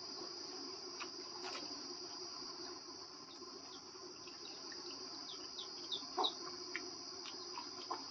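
Crickets chirring steadily, a continuous high-pitched drone, with scattered soft clicks and a few quick high chirps about halfway through.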